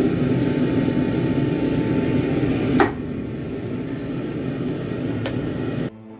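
Steady rushing noise of a gas forge burner, with a sharp metallic clank about three seconds in and a lighter click near the end. Just before the end it cuts off abruptly to background music.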